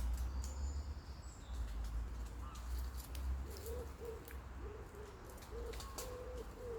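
An animal calling in a series of short, low, hooting notes, about two a second, beginning a little past halfway. Underneath runs a low rumble, with a few sharp clicks.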